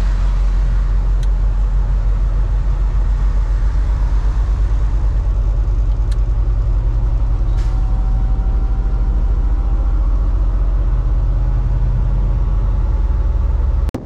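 Semi truck's diesel engine running steadily at highway cruise, heard inside the cab as a constant low drone with tyre and road noise over it.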